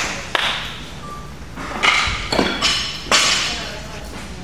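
Barbell being reloaded between lifts: several metal clinks and knocks of plates and collars on the bar, the loudest about two and three seconds in, with the chatter of a gym hall behind.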